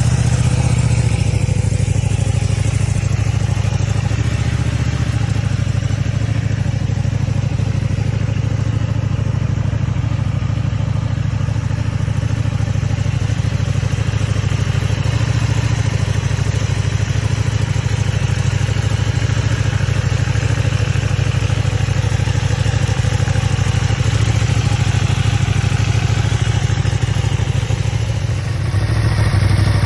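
Stock Ducati Panigale V2's 955 cc Superquadro V-twin idling steadily through its standard exhaust.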